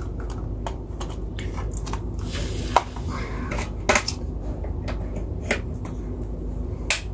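Scattered light plastic clicks and knocks as a plug-in timer is pushed onto its 8-pin socket and set down on the table, with a few sharper clicks spread through, over steady low background noise.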